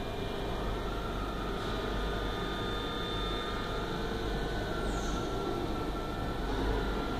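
Steady background hum and hiss of a room with running machinery, with a few faint steady tones and no distinct events.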